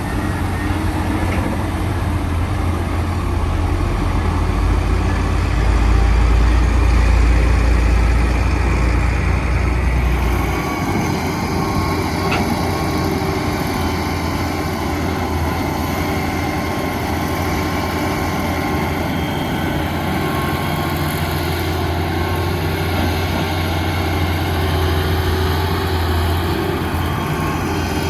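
Diesel engines of heavy earthmoving machinery running, a low steady drone that swells for a few seconds and eases off about ten seconds in.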